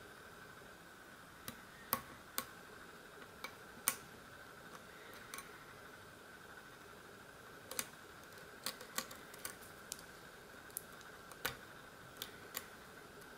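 Lock pick and tension wrench working the pins of a euro-profile pin-tumbler cylinder: scattered sharp metallic clicks at irregular intervals over a faint steady hum.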